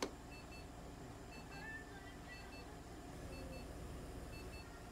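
Electronic beeping from medical equipment: short high double beeps repeating evenly about once a second, with a single click at the start.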